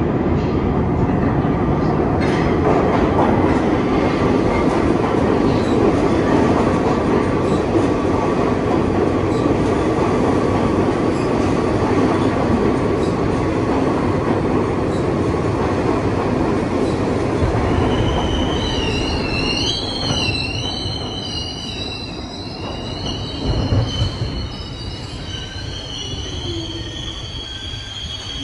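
R62 subway train pulling into a station and braking to a stop. A loud steady rumble of steel wheels on rail as the cars pass gives way, about two thirds in, to a high wavering wheel squeal as the train slows, with a brief thump near the end.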